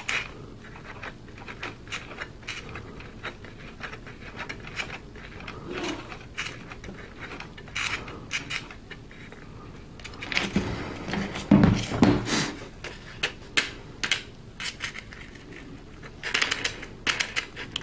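Small clicks, taps and scrapes of steel needle-nose pliers and plastic parts handled on a model plane's prop shaft as a small piece is screwed on by hand, with a few louder handling knocks around the middle and near the end.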